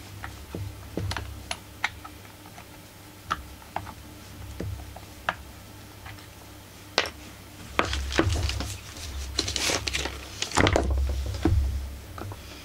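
Light clicks and taps of plastic and metal as a Husqvarna 44 chainsaw is handled during disassembly, then from about eight seconds a denser run of rattling, scraping and knocking as the saw's plastic housing is shifted and worked loose.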